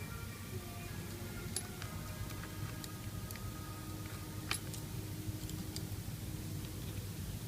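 Several light, sharp clicks and ticks from small tools and phone parts being handled, the loudest about four and a half seconds in, over soft background music.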